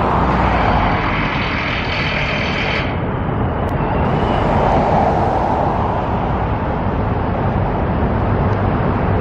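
Steady road traffic rumble outdoors, with a high whine over it for the first few seconds that cuts off suddenly.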